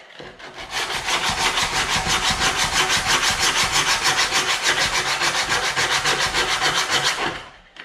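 Hand sanding a wooden panel-saw handle with a folded sheet of sandpaper: quick, even back-and-forth scratchy strokes cutting through the old finish toward clean wood. They stop near the end.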